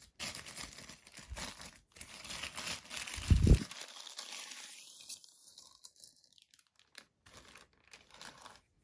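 Plastic protective wrapping crinkling and rustling as it is pulled off a camera lens, with one dull thump about three and a half seconds in. After about five seconds the rustling dies down to a few faint handling clicks.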